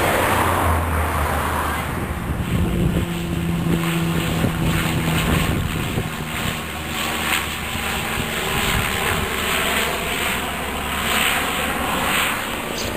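A twin-turboprop airliner's engines droning as it flies overhead, with wind buffeting the microphone. Low steady drones are strongest in the first half.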